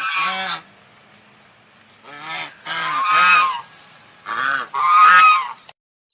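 Domestic waterfowl calling: about six loud honking calls in three pairs, the later ones longer, cut off abruptly near the end.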